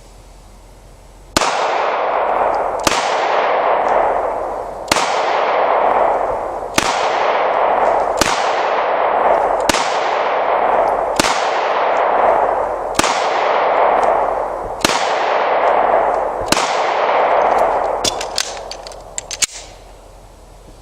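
Taurus 9mm pistol fired ten times at an unhurried pace, about one shot every one and a half to two seconds, each shot followed by a long fading echo. A few light clicks follow shortly after the last shot.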